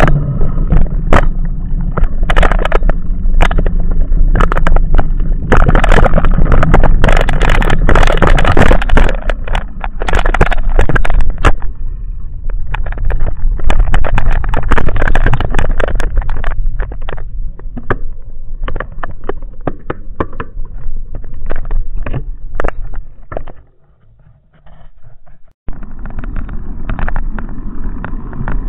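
Wind buffeting the microphone of a camera mounted on a mountain bike, with the rattle and knocks of the bike and mount jolting over rough broken tarmac, gravel and dirt track. The noise drops away for about two seconds near the end.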